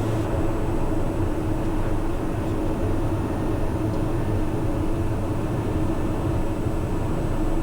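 Steady drone of a Socata TBM 910's Pratt & Whitney PT6A-66D turboprop engine and propeller at taxi power, heard inside the cockpit, with a steady low hum and an even tone.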